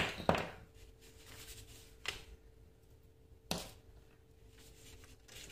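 A sheet of paper rustling as it is handled: two short rustles at the start, another about two seconds in and one more about three and a half seconds in.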